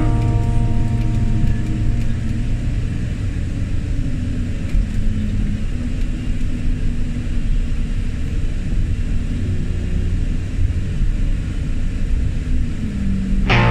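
Diesel engine of a Hitachi ZW220 wheel loader running steadily, a low rumble whose pitch shifts slightly now and then.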